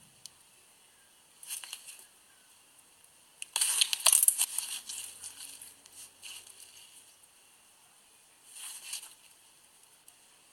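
Clear slime mixed with charms being squeezed and played with by hand, giving three bursts of crackling, crinkling noise, the loudest about four seconds in.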